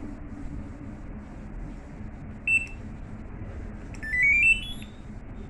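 The washing machine control board's buzzer beeping: one short high beep about two and a half seconds in as a button is pressed, then about a second and a half later a quick run of beeps stepping upward in pitch as the board accepts the start command.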